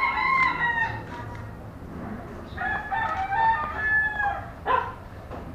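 Rooster crowing twice, each crow a long pitched call lasting more than a second, with a short sharp noise near the end.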